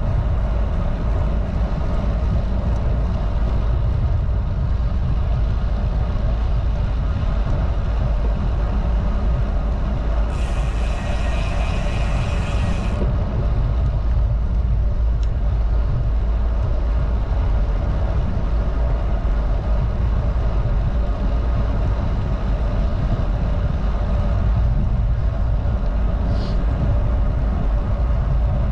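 Wind rushing over the microphone of a bike-mounted camera at road-cycling speed of about 20 mph, with tyre noise from the pavement: a steady, loud low rumble. About ten seconds in, a brighter hiss joins it for a couple of seconds.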